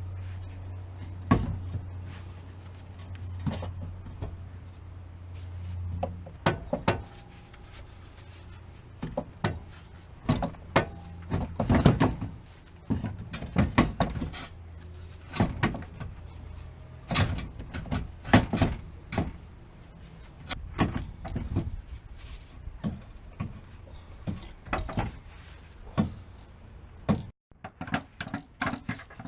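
Irregular knocks and clicks of hard objects being handled, with a low steady hum during the first six seconds.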